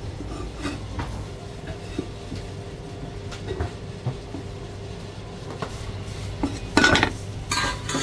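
A Chinese cleaver slicing and tapping through marinated meat on a plastic cutting board, in scattered, irregular knocks. Near the end come louder bursts of clatter as the meat is handled into a plastic takeaway box.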